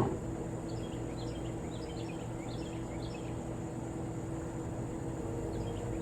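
Outdoor ambience: small birds chirping in quick scattered series, over a steady low hum.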